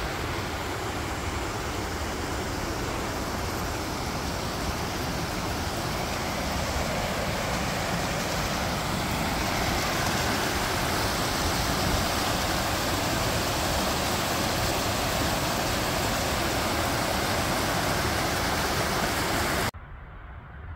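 Creek water rushing over a low dam and down a rocky cascade: a loud, steady rush that swells a little past the middle and cuts off suddenly about a second before the end.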